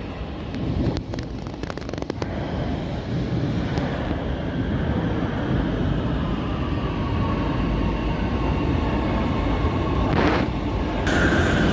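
Train running on the rails: a steady rumble with a cluster of clicks about a second in, growing gradually louder, and a high steady tone starting suddenly near the end.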